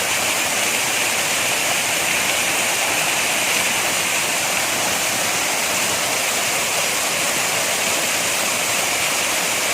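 Waterfall: water falling and rushing over rocks in a steady, loud, unbroken roar of white noise.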